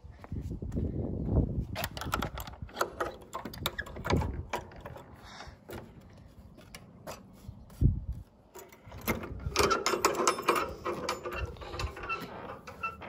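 A run of sharp metallic clicks and rattles, like a barn door's latch and hardware being worked, in two busy stretches: from about a second in to about five seconds, and again from about nine to twelve seconds in.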